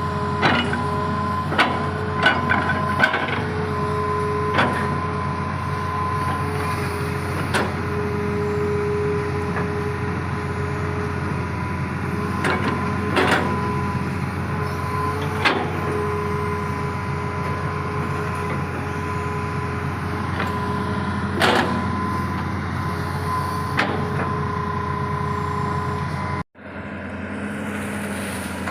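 Hydraulic excavator working: its diesel engine runs steadily under a high steady whine, with a scatter of sharp metallic clanks. The sound cuts out for a moment near the end, then the engine carries on.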